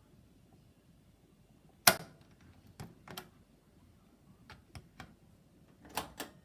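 Buttons on a washing machine's control panel being pressed: a series of sharp separate clicks, the loudest about two seconds in and a cluster near the end.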